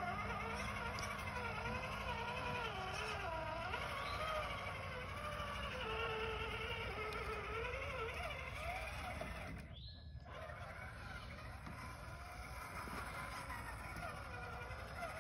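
Electric motor and gear whine of an RC Ford Bronco crawler working over dirt, its pitch rising and falling with the throttle. The sound briefly cuts out about ten seconds in.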